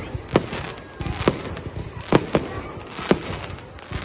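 Fireworks display: about five sharp bangs of aerial shells bursting, roughly a second apart, with a steady crackling din between them.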